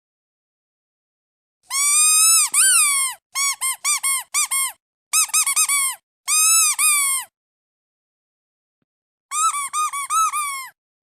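Squeaky duck toy being squeezed: a long squeak, a quick run of short squeaks, two more long squeaks, then after a pause of about two seconds another quick run of squeaks near the end.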